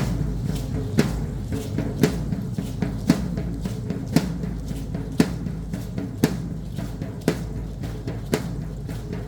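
Drum beating the rhythm for a traditional Mexican danza: a steady beat with a strong stroke about once a second and lighter strokes between.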